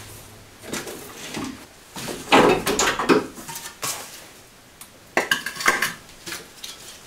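Irregular clicks, knocks and clatter of a car's indicator and square headlight unit being unclipped and lifted out of the front panel by hand, with the heaviest bursts of handling noise in two clusters mid-way and near the end.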